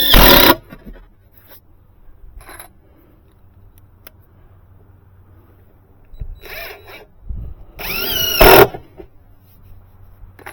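Cordless impact driver driving exterior star-head screws into a new pressure-treated 2x6 stair tread, in short runs: one right at the start, then a longer run about seven to nine seconds in that rises in pitch as the screw is sunk just below the surface.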